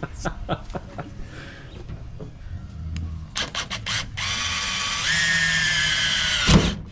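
Cordless drill boring a hole into the sheet-metal bed rail of a ute tub: about four seconds in the motor starts with a steady whine that steps up in pitch a second later as the bit cuts, then stops with a thump. Before it, a few light clicks and handling knocks.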